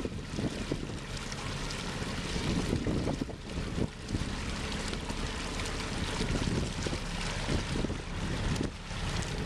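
Engine of a small creel-laden lobster boat running steadily as it motors slowly past, with wind buffeting the microphone.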